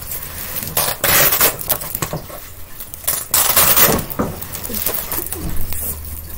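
Wire grid panels of a guinea pig cage rattling and clinking as they are handled, with two louder bouts, about a second in and again around three and a half seconds in.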